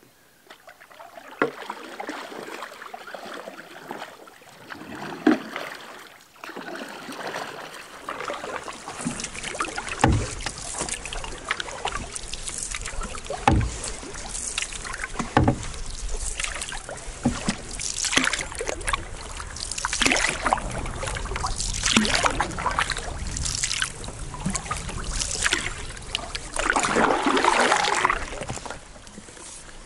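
Canoe paddles dipping and pulling through river water, a splashy stroke about every two seconds, with water washing along the hull.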